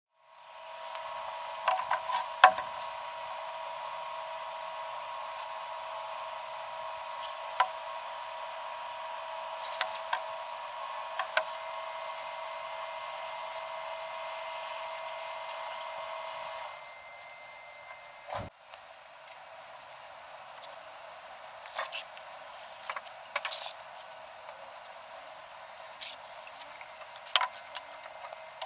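Hands working foam board on a cutting mat: scattered clicks, taps and light scratches from marking out and handling the sheet and ruler, over a steady background hum that changes about two-thirds of the way through.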